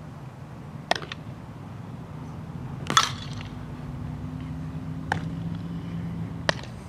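Four sharp knocks of softballs being struck and fielded, the loudest about three seconds in, over a low steady hum that starts about two seconds in and stops near the end.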